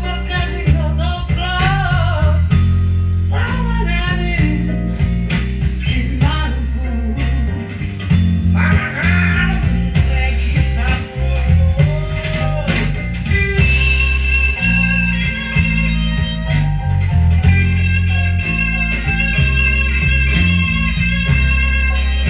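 Blues song with electric guitar leads over bass and drums, played from a vinyl LP. The guitar bends notes in the first half and holds long notes from about two-thirds of the way in.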